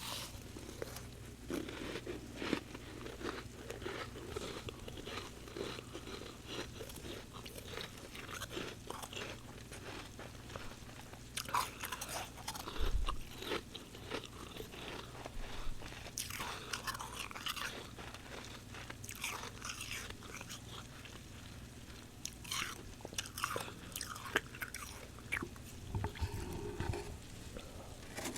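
Close-up crunching of humidifier frost being bitten and chewed: an irregular run of crisp crackles, with denser, louder bursts of crunching in the middle.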